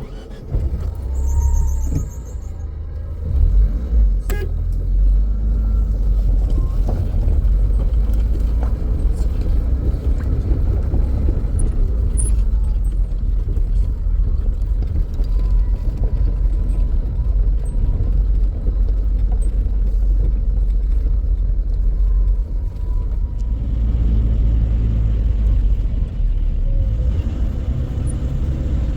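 Car on the move, a steady low rumble of road and engine noise.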